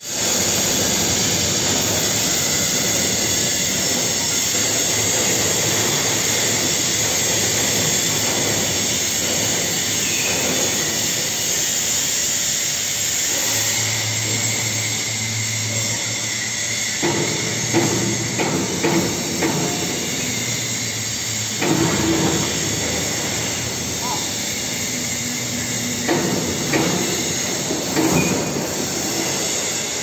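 Overhead crane running in a steel factory hall, a steady loud rumbling hiss with a low hum coming in about halfway. From a little past halfway, irregular metal clanks and knocks sound as the hoisted machine is set down on the truck bed.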